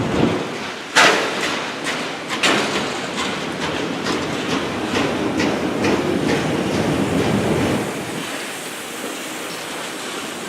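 Freight train cars rolling past, their wheels clacking over rail joints in a steady rhythm, with the sharpest clacks about a second in; the sound grows quieter about eight seconds in.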